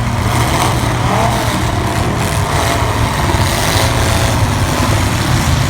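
V8 engines of demolition derby cars running loud and steady, with some revving.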